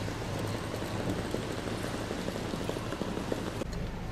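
Heavy rain falling and spattering, a dense patter of many small drops. Near the end the sound changes abruptly to a lighter rain with a low hum beneath it.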